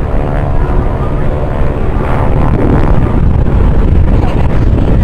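Piston-engine propeller aircraft droning overhead in a steady, loud pass, with wind rumbling on the microphone.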